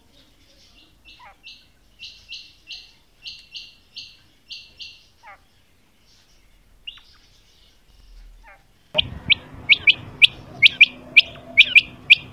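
Female quail calling: a run of short, high notes about three a second that grows louder, then stops. About nine seconds in, a louder series of sharp calls starts over a steady low hum.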